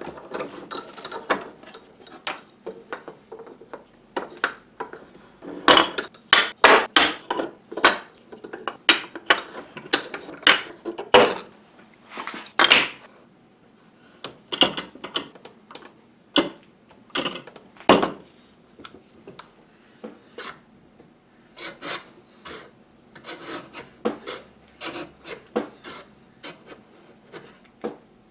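Irregular knocks, clatters and short scrapes of wooden parts being handled and re-clamped in a benchtop vise: a wooden block and the brace's round wooden head being set between the vise jaws. The busiest stretch of knocks comes in the middle, with a few louder single knocks after it.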